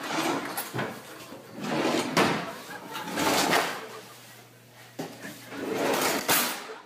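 Wooden kitchen drawers being slid open and pushed shut, several times over, by a small child, with a few sharp knocks of wood on wood among the sliding.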